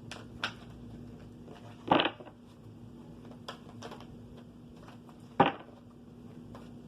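Tarot cards being shuffled and handled on a table: light clicks and taps, with two louder card sounds about two seconds in and about five and a half seconds in.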